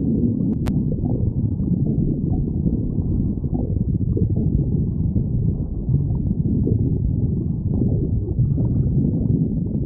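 Stomach growling: a continuous low gurgling rumble that goes on without a break.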